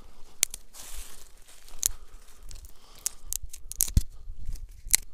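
Side twigs being snapped and stripped off a thin green branch by hand: a series of sharp cracks with a rustle of twigs between them, the loudest snaps about four and five seconds in.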